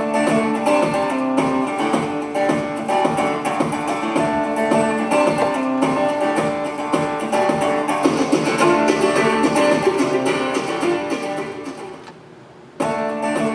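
Instrumental music with plucked and strummed guitar, from the soundtrack of a projected video. It breaks off briefly near the end and starts again.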